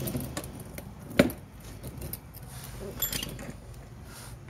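Handling and movement noise from someone shifting on her back on a concrete floor under a car: one sharp knock about a second in, a few lighter clicks about three seconds in, and soft rustling between.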